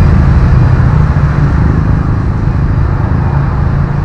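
A steady low engine rumble, a motor vehicle engine running in the background.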